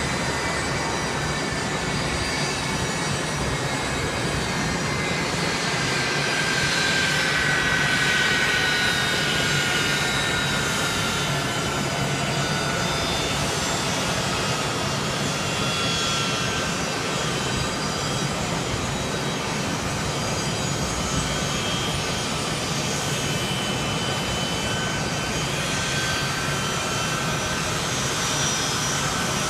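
Boeing 757 jet engines at taxi power: a steady jet roar with high whining tones that slowly fall in pitch, swelling a little about eight seconds in.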